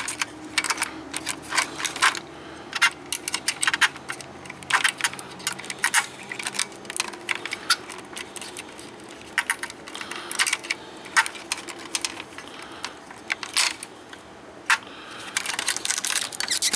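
Irregular light clicks and small rattles of plastic and metal as an LCD monitor's power circuit board and its cable connectors are handled and unplugged.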